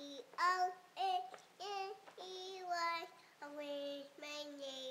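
A toddler girl singing the letters of her name in a sing-song tune, one held note per letter.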